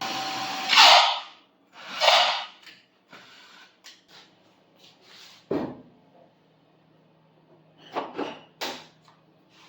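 Tools being handled while a drill is set up: a few short scraping and rustling sounds, a single knock about halfway, and more brief scrapes near the end.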